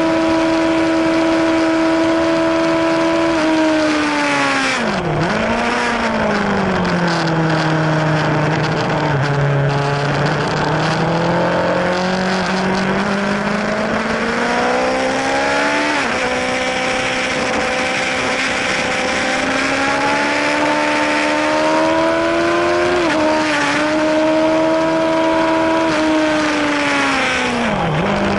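Yamaha YZF-R1 inline-four engine heard from on board the bike at speed, with wind rushing past. The engine note holds high, falls sharply about five seconds in and sinks low, climbs back through the revs with a step at about sixteen seconds, and falls again near the end as the bike slows.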